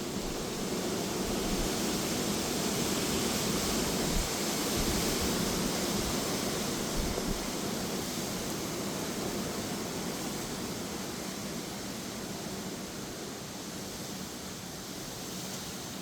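Strong gusty wind with rain: a steady rushing that swells over the first few seconds and eases toward the end, with low thumps of wind buffeting the microphone in the first half.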